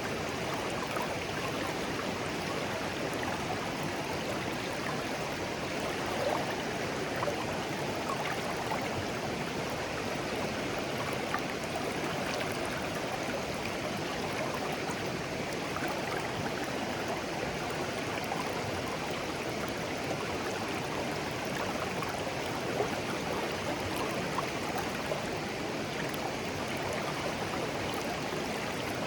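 A shallow, clear stream flowing steadily, a continuous babble of water over stones with small gurgles and splashes.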